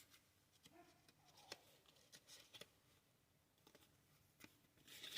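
Faint rustling and light ticks of Pokémon trading cards being handled and slid one behind another by hand, otherwise near silence.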